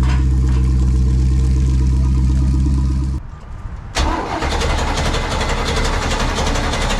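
A boat engine runs steadily during a first test start and cuts off about three seconds in. About a second later a louder, noisier rushing sound with a low rumble starts and runs on.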